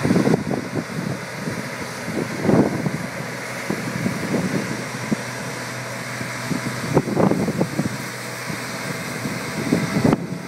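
Pellenc self-propelled four-row sprayer running steadily while spraying, a constant machine drone with a low hum. Wind buffets the microphone in irregular gusts, strongest about two and a half seconds in, about seven seconds in and near the end.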